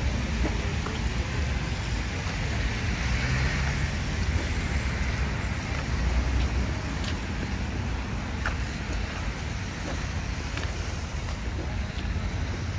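City street ambience: steady road-traffic rumble, with a few sharp clicks scattered through it, such as footsteps on the pavement.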